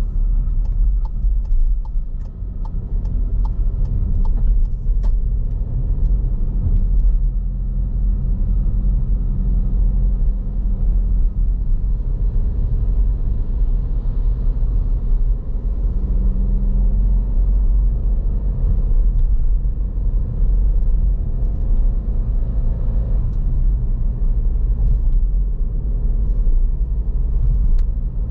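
Car being driven: a steady low rumble of engine and road noise, with a run of evenly spaced ticks, about two a second, in the first five seconds.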